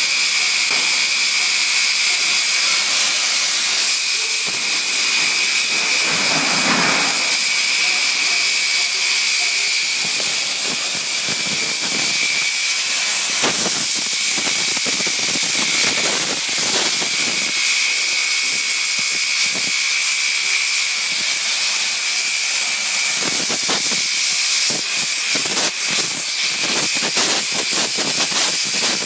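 CNC cutting table's torch cutting metal plate: a loud steady hiss with a high steady whine, with scattered crackles through it.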